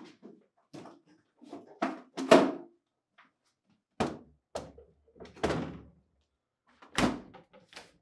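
GE French-door refrigerator door being handled on its hinge and swung shut: a series of separate knocks and clunks, ending near the end in a sharp thump as the door closes.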